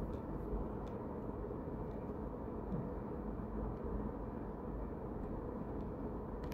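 Steady low background hum and hiss of room noise, with a few faint clicks.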